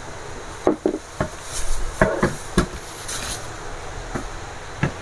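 Handling knocks and clunks of a large electric contact grill being set out and its hinged plates moved: about eight sharp, irregular knocks, with brief rustles between them.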